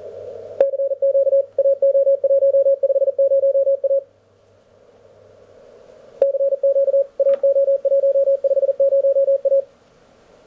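Elecraft K1 CW transceiver sounding a Morse code signal on the 17-metre band: a steady mid-pitched tone keyed in dots and dashes over receiver hiss, in two runs of about three seconds, each starting after a sharp click.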